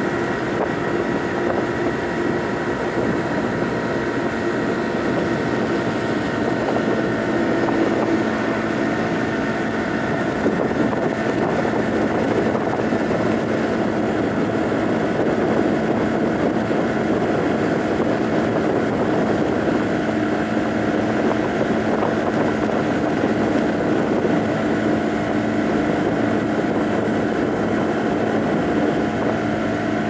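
Honda Giorno 49cc scooter's small four-stroke single-cylinder engine running steadily while riding, a constant drone with wind noise, its pitch shifting a little with road speed.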